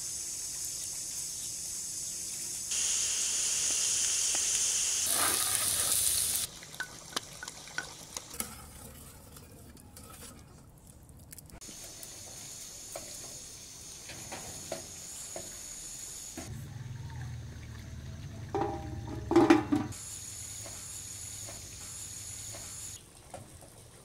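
Water running and splashing, loudest in the first six seconds, as handfuls of fresh herbs are dropped into a pot of water. A short clatter about nineteen seconds in.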